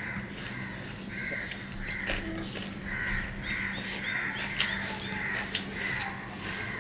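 Crows cawing over and over, about two calls a second, with sharp wet clicks from rice and curry being mixed by hand and chewed.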